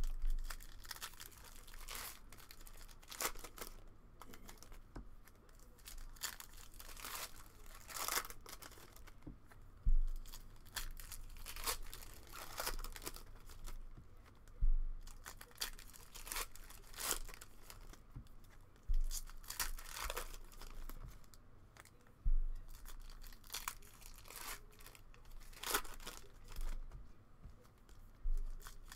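Trading card packs and their wrapping being torn open and crinkled by hand, with irregular crackles and tearing throughout and a few dull bumps of handling.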